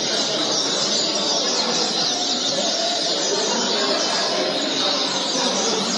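Many caged double-collared seedeaters (coleiros) singing at once in a song tournament: a dense, unbroken chorus of short, quickly falling high notes overlapping one another.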